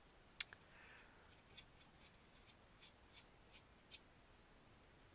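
Near silence with a few faint, sharp clicks scattered through it, small kit parts and a screw being handled on the work surface.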